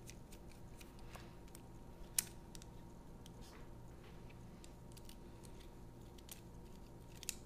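Faint scattered clicks and ticks of carbon-fiber frame plates, aluminum standoffs and small screws being handled and fitted together, with a sharper click about two seconds in and another near the end, over a faint steady hum.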